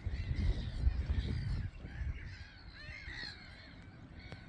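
A gull colony calling, harsh arched calls overlapping, with a low rumble during the first second or so.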